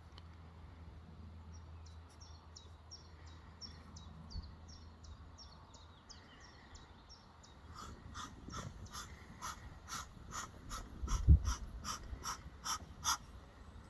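Small birds calling: a run of short, high, falling chirps at about three a second, then from about halfway a louder series of sharp, evenly repeated calls at about two a second. A single low thump comes near the end.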